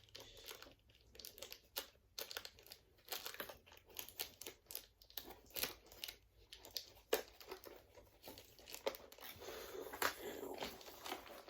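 Plastic packaging crinkling and rustling with irregular crackles as a toy frog is worked loose from the ties holding it in its box.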